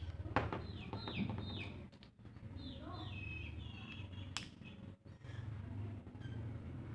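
Birds chirping in a quick series of short, falling chirps for the first few seconds, over a steady low hum, with a couple of sharp clicks.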